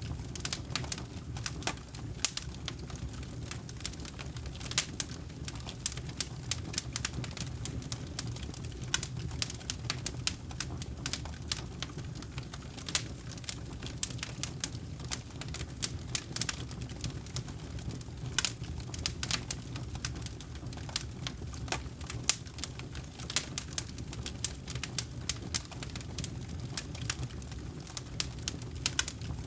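Wood campfire crackling, with sharp irregular pops and snaps several times a second over a steady low rumble.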